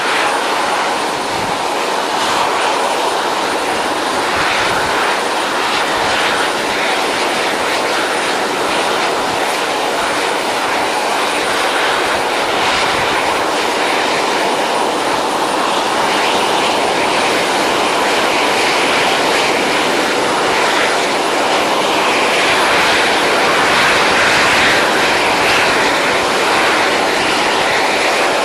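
Model jet turbine engine running at a steady speed: a loud, even rushing noise with a faint high whine above it, swelling slightly about three quarters of the way through.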